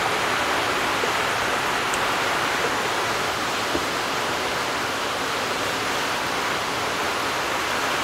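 A steady, even rushing hiss of background noise, unchanging throughout, with a couple of faint light clicks from hand tools working on the engine.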